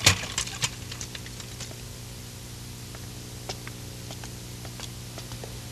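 Scattered light footsteps and taps on a hard tiled floor, busiest in the first second and sparse after, over a steady low hum.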